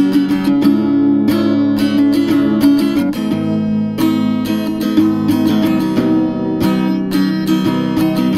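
Acoustic guitar strumming chords, with several strokes a second over ringing notes, in the instrumental break of a song.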